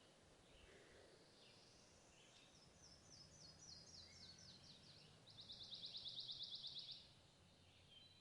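Sparrow singing: a run of short, high, falling notes, then a fast, even trill of about ten notes a second lasting nearly two seconds, the loudest part of the song.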